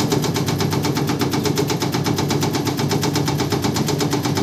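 Automatic leaf-chopping (rajang) machine running on its own: its motor hums steadily under a fast, even chopping clatter of about ten blade strokes a second as it shreds leaves.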